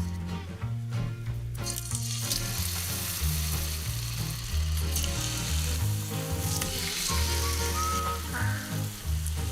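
Food sizzling and frying in a hot pan, a steady hiss that swells about two seconds in.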